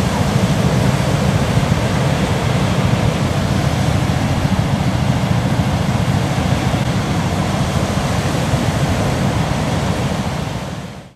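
Surf washing onto a sandy beach, mixed with wind buffeting the microphone, making a steady rushing noise with a strong low rumble. It fades out near the end.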